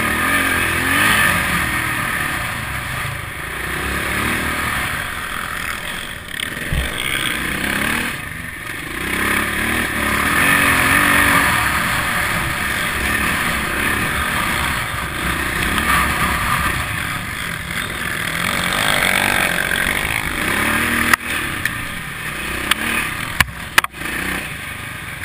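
Enduro dirt bike engine running as it is ridden over a rough gravel track, swelling and easing with the throttle, under a steady rush of wind noise. Several sharp knocks come near the end.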